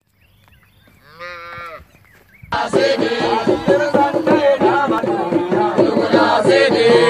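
One short moo from long-horned cattle about a second in. Music comes in loudly about two and a half seconds in and carries on.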